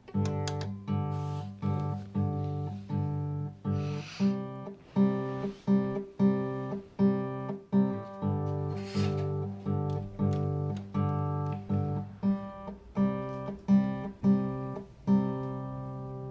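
Solo guitar background music: chords strummed about twice a second, the last one left ringing near the end.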